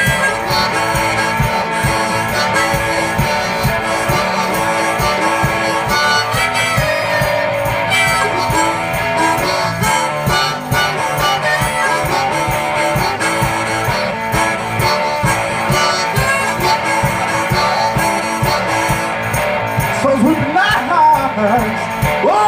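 One-man band playing an instrumental blues-rock passage: electric guitar and harmonica over a steady beat. A singing voice comes in near the end.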